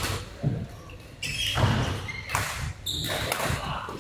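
Badminton play in a large echoing hall: rackets striking the shuttlecock and players' feet thudding on the court, as a series of sharp knocks.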